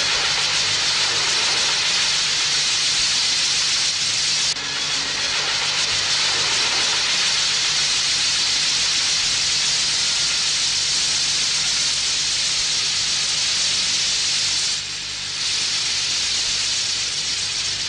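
Sparkling wheel firework spinning and spraying sparks with a loud, steady hiss. The hiss dips briefly about four and a half seconds in and again near fifteen seconds.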